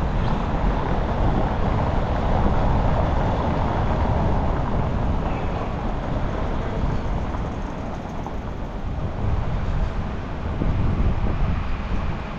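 City street noise with a motor vehicle running past, swelling in the first few seconds and easing off after.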